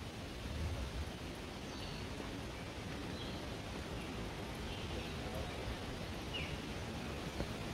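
Forest ambience: a steady low rush of noise, with a few faint, short bird chirps scattered through it.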